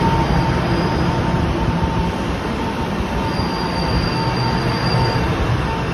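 Taiwan Railway EMU900 electric commuter train running past along the platform: a steady, loud rumble of wheels on rail with the hum of its motors. A thin, high wheel squeal comes in about three seconds in and fades near the end.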